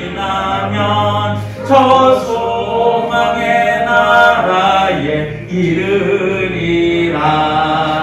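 A man singing a slow hymn into a handheld microphone, with long held notes and a brief breath about halfway through.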